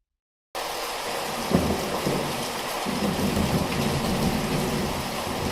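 Rain-and-thunder sound effect: a steady hiss of heavy rain starting abruptly about half a second in, with low thunder rumbles about a second later and again midway.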